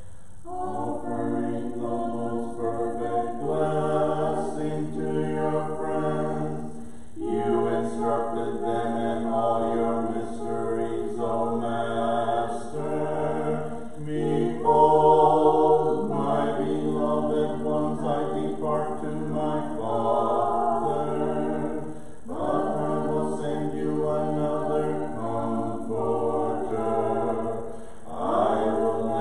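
Choir singing an Orthodox Vespers hymn a cappella in several parts, in phrases a few seconds long over a held bass line.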